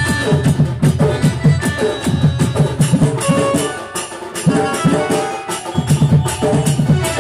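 Sambalpuri kirtan (bhajan) music: fast, steady drum beats with a melody held over them, the drumming thinning out briefly about four seconds in.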